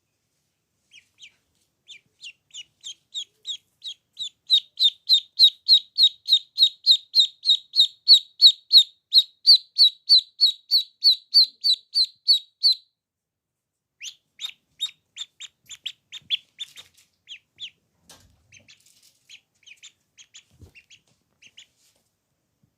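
Duckling peeping: a long run of loud, high, falling peeps about three a second that breaks off about 13 seconds in, then resumes more unevenly and grows fainter.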